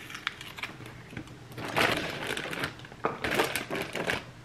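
Frozen food handled at a freezer: small clicks as frozen cubes are pushed out of a silicone ice-cube tray, then two louder bursts of crackling plastic rustle as bagged frozen food is moved about in the freezer drawer.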